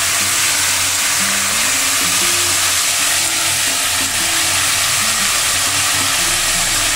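Potato and radish strips frying in hot oil in a karai, a steady sizzle, while handfuls of eggplant strips are added to the pan.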